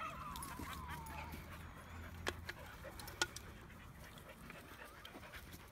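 A dog whimpering: a thin, wavering whine that slides down in pitch over the first second or so. Later come two short sharp ticks about a second apart.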